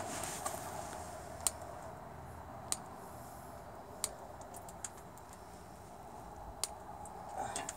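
About six sharp metallic clicks, irregularly spaced, as the snowblower's chute deflector linkage is worked on during greasing, over a steady low hum.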